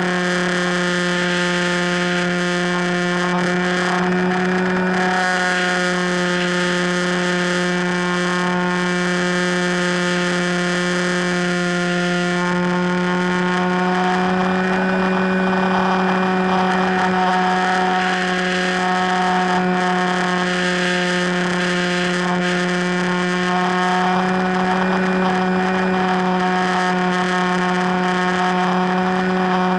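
FPV Raptor RC plane's motor and propeller running at steady throttle: a constant drone whose pitch shifts only slightly a few times.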